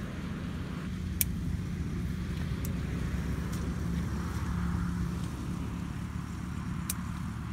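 A few sharp snips of scissors cutting marigold stems over a steady, low, engine-like drone.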